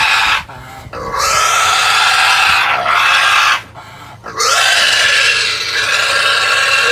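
Pig squealing in long, loud screams, broken by two short gaps.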